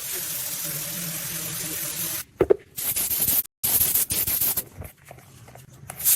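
Pressurised spray hissing in bursts: one long burst of about two seconds, then several shorter bursts with brief gaps between them.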